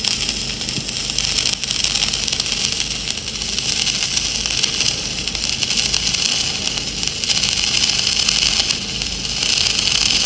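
Flux-cored wire-feed arc welding on a pipe joint in the 6G position: the arc runs with a steady, crackling hiss.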